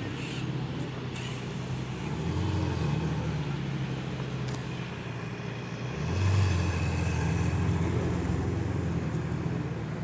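Sports car engine running at low revs in street traffic, swelling louder about two seconds in and again, more strongly, about six seconds in.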